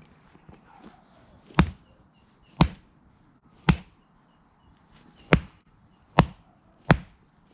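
Axe chopping firewood: six sharp strikes into wood, spaced roughly a second apart, with a longer gap in the middle.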